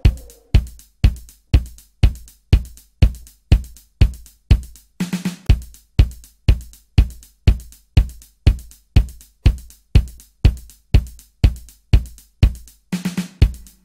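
Bare programmed drum beat of a DJ's extended remix, with no vocals: a steady kick-drum pulse of about two strokes a second with higher hits over it. A short rapid fill with a low tone breaks in about five seconds in and again near the end.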